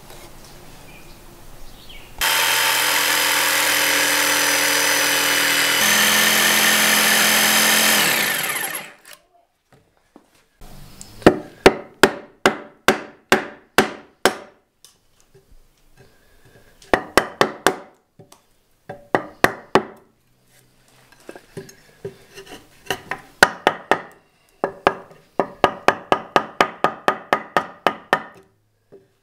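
A power tool runs steadily for about six seconds, its pitch shifting slightly partway through, then stops. Then a wooden mallet strikes a timber-framing chisel into a beam, in runs of sharp knocks about three a second, as a mortise is chopped and cleaned out.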